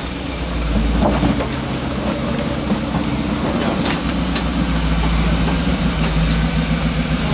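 Rock crawler's engine running at low, steady revs as the vehicle creeps over boulders.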